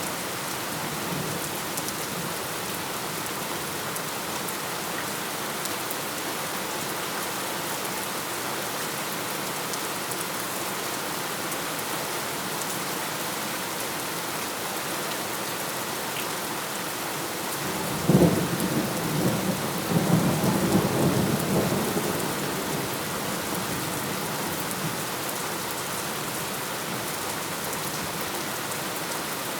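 Steady rain throughout, with a sudden crack of thunder about eighteen seconds in that rumbles on for about four seconds before fading back into the rain.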